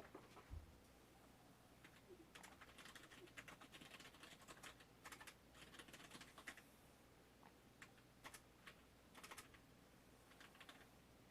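Faint quick clicking in several short bursts, over a near-silent room.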